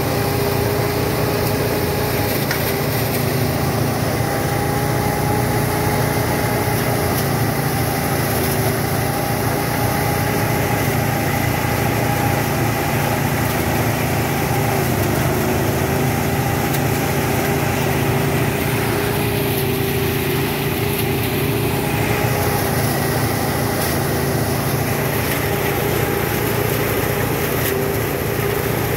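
Small engine of a rice thresher running steadily at constant speed, with a steady whine over its rumble.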